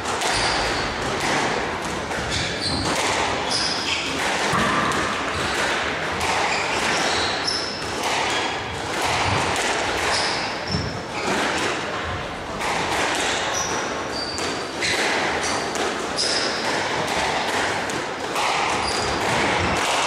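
A squash rally: the ball is struck by rackets and smacks off the walls again and again, with short high squeaks from the players' shoes on the court floor, over a background murmur of voices.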